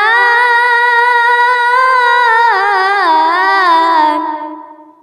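A boy's voice reciting the Quran in melodic tajweed style, holding one long drawn-out note. The note wavers through an ornament about two and a half seconds in, sinks a little, and fades out near the end.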